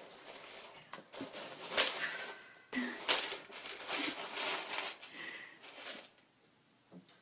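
Dry macaroni rattling and scattering in irregular bursts as a ferret digs and burrows through it.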